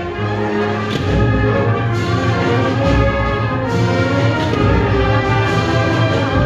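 Agrupación musical, a marching band of cornets, trumpets and trombones with drums, playing a slow processional march. Sustained brass chords sound over a drum beat about once a second.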